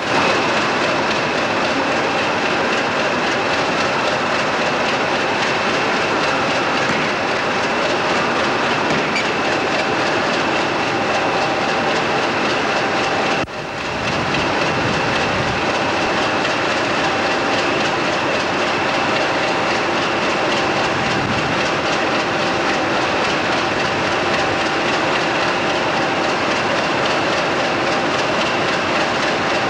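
English Electric Class 50 diesel locomotive standing at a platform with its engine running steadily, a high whine held over the engine noise. The sound briefly drops out about halfway through.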